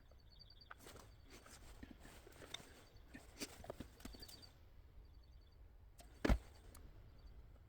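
Small clicks and taps of hands handling the brake light unit and sealant, scattered and light, with one louder knock about six seconds in.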